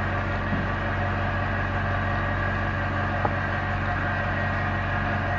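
Steady hum of workshop machinery, an even drone with several fixed tones, with a faint click about three seconds in.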